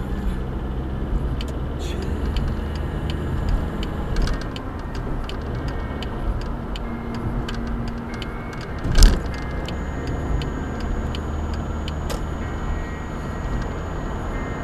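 Steady low road and engine rumble inside a moving car, picked up by a dashcam. Light ticks are scattered through it, and there is one loud thump about nine seconds in.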